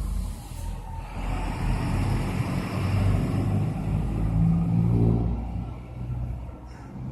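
A motor vehicle passing by: engine hum and tyre noise build up, are loudest about five seconds in, then fade away.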